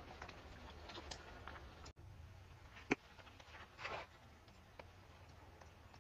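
Faint scattered clicks and rustles over a low hum, with one sharp click about three seconds in and a brief rustle about a second later.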